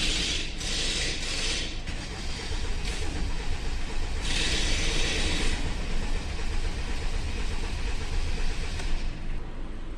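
A car engine making a steady low running sound, with bursts of hiss twice at the start and again about four seconds in.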